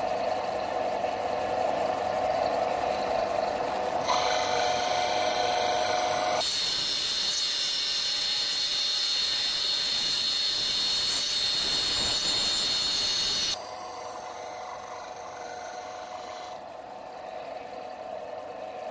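Bench disc sander running with a steady motor whine while the edge of a plywood disc is held against the sanding disc. The scraping sanding noise is loudest through the middle, then drops away about two-thirds of the way through, leaving the sander running free.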